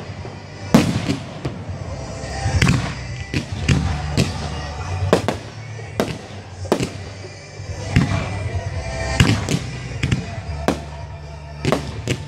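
Aerial fireworks display going off in a rapid, irregular string of sharp bangs, about twenty in all, some close together and some a second or more apart.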